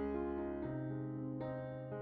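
Slow background piano music: chords struck about once a second and left to ring.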